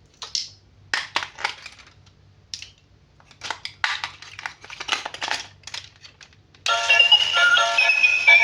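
Packaging handled in short irregular bursts of crinkling and clicking, with brief pauses. About three-quarters of the way through, background music with synthesized singing starts.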